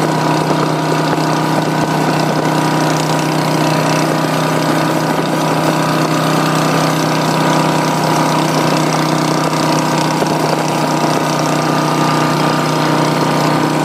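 Two V-twin cruiser motorcycles running side by side at a steady cruising speed, their engines holding one even pitch with no revving.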